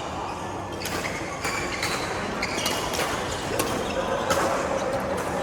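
Badminton rally: several sharp racket-on-shuttlecock hits and short sneaker squeaks on the court floor, echoing in a large hall over a background of voices.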